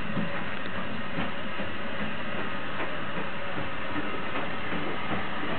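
Steam locomotive approaching slowly along the track: a steady mechanical noise with light clicks here and there.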